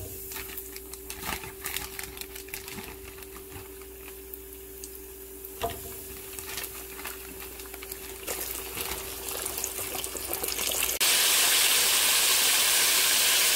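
Battered chicken wings deep-frying: hot oil crackling and popping around the wings. About eleven seconds in it jumps suddenly to a louder, steady sizzle of rapid frying.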